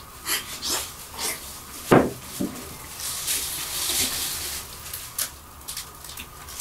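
Eating at the table: wooden chopsticks clicking and scraping against ceramic bowls, with a duller knock about two seconds in.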